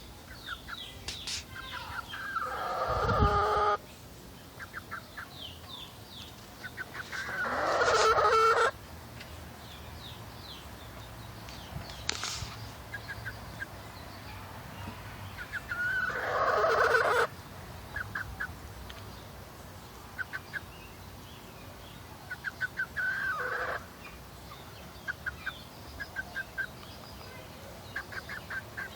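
A young hen clucking, the sound the owner takes for broody noises: runs of short, quick clucks broken by four louder drawn-out calls that swell for about a second and stop abruptly.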